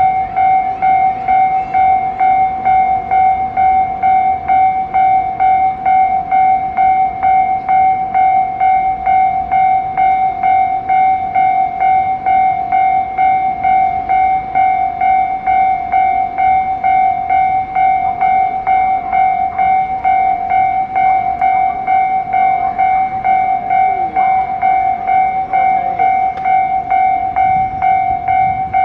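Japanese level-crossing warning bell sounding continuously: one clear ringing tone repeated in a fast, even rhythm. It signals that the crossing is closed for an approaching train.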